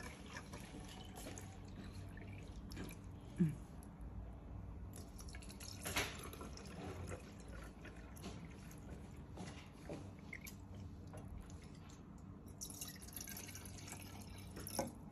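Water poured in a thin stream from a glass jug into small copper cezves, trickling and dripping faintly, with a couple of light knocks about a third of the way in. The pots are being filled to check whether they leak.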